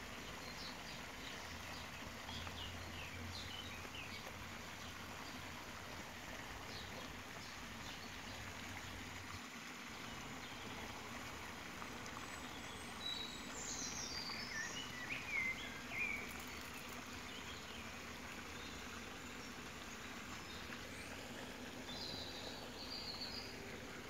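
Dawn chorus: several songbirds chirping and trilling faintly over a steady background hiss, with a denser, louder spell of song about halfway through and a few more calls near the end.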